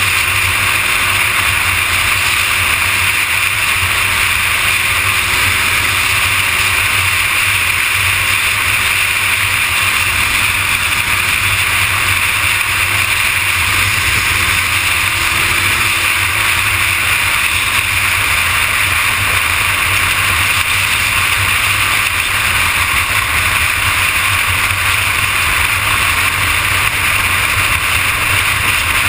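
Steady rush of wind over a motorcycle-mounted camera at freeway speed, with the Kawasaki ZX-6R's engine running at a steady cruise as a low rumble underneath.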